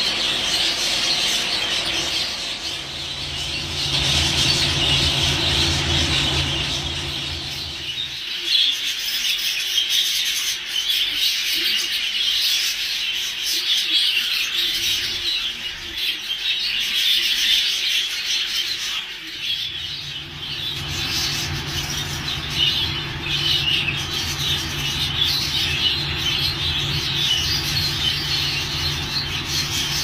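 A flock of budgerigars chattering and warbling together, a dense continuous twittering. A low steady hum comes in for several seconds near the start and again through the second half.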